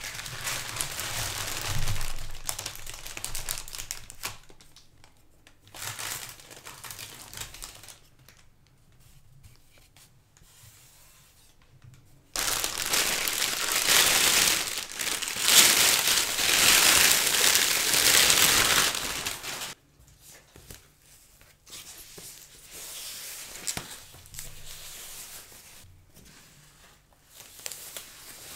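Plastic packaging crinkling and rustling in bouts as a speaker is unwrapped by hand. The longest and loudest stretch, about halfway through, comes as it is slid out of a clear plastic bag; weaker rustles follow.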